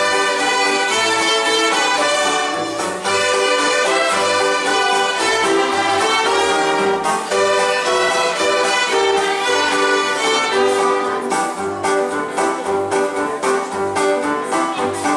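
A violin ensemble playing a lively dance tune together over a steady low beat. About two-thirds of the way through, the bowing turns to short, detached notes.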